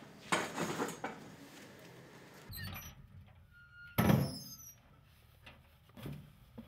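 Paper rustling as a file register is handled. About four seconds in, a steel cupboard door is pulled open with a sharp metallic clank and a brief squeak, followed by a few light knocks.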